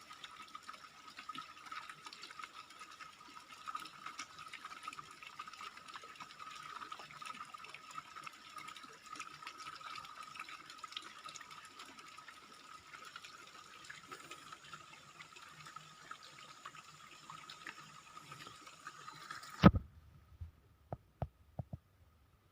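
Steady rush of falling water with a constant high tone over it. About twenty seconds in it cuts off suddenly, followed by a loud knock and a few sharp clicks.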